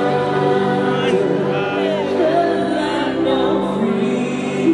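Voices singing together in chorus with music, in long held notes.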